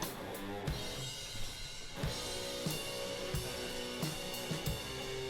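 Instrumental background music: a band with a drum kit, the drums and cymbals coming in fully about two seconds in over sustained notes.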